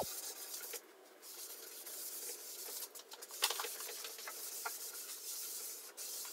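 Cloth rag wiping Black Japan stain across a plywood panel: a soft, hissing rub with a few light clicks, the sharpest about three and a half seconds in.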